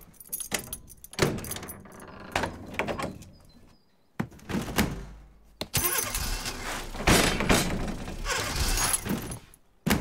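Cartoon sound effects of a wooden up-and-over garage door being handled: uneven knocks and rattles, a longer run of clattering noise, then a sharp bang near the end as the door comes down shut.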